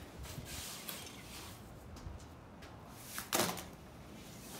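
A shovelful of wet clay-and-sand earthen floor mix is thrown down onto the floor and lands once, about three seconds in, as a short sudden sound, over faint shuffling.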